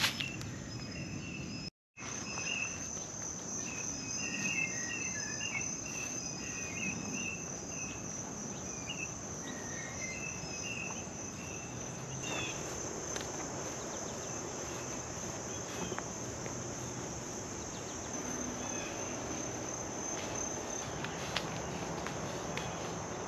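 Meadow insects trilling steadily in a high, pulsing chorus, with scattered short bird calls over it in the first half.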